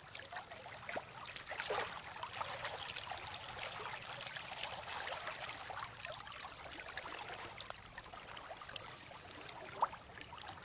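River water flowing and babbling steadily, full of small splashing ticks, with one sharper click near the end.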